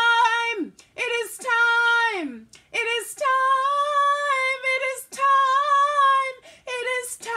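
A woman singing solo and unaccompanied: several held notes in short phrases, some sliding down in pitch at the end.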